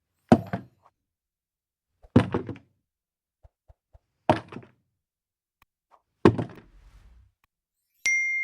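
Four heavy thuds about two seconds apart, each followed by a short rattle of smaller knocks. A single ding starts near the end, ringing on and fading.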